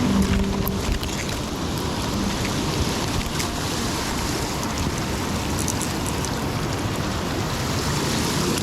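Steady rush of river water, with wind noise on the microphone and a few faint ticks.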